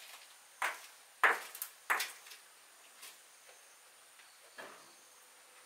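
A few sharp knocks and clacks, the loudest about a second in: a light metal-framed door being pushed open and knocking as it swings.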